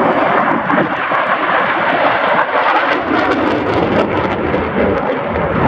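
F-16 Fighting Falcon jet engine noise from a display pass: a loud, continuous rushing roar. The deep rumble underneath grows heavier in the second half.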